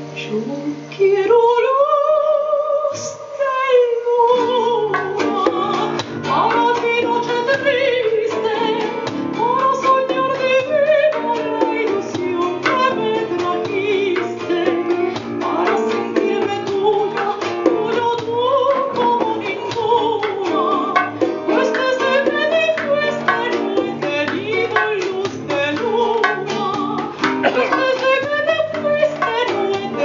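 Soprano singing live with acoustic guitar, piano and bongo accompaniment, her voice entering about a second in on a long rising held note and then carrying a melody with vibrato over plucked guitar notes and light hand-drum taps.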